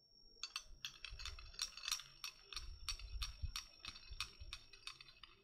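A stirring rod clinking against the inside of a glass beaker of water, a quick, steady run of light clicks, about four or five a second, starting about half a second in: crystals being stirred to dissolve.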